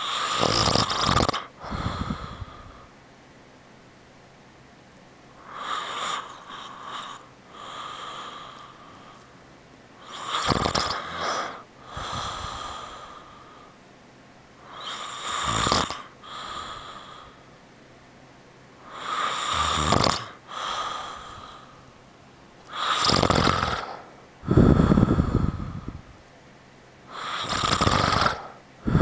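A man snoring, one snore about every four to five seconds, seven in all. Each snore comes in two parts: a louder first part, then a shorter, softer one.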